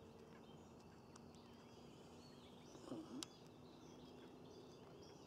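Near silence: faint outdoor ambience with small birds chirping in the distance, and one brief low sound about three seconds in.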